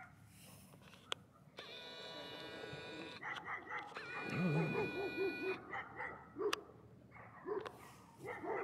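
An animal whining: two long, steady, high pitched whines, with short wavering cries between and after them.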